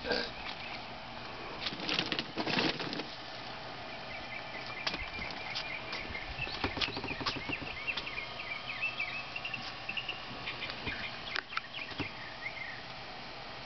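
Golf cart running with a steady hum, with a few knocks and rattles, loudest about two seconds in. A bird sings a string of short chirps from about four seconds in until near the end.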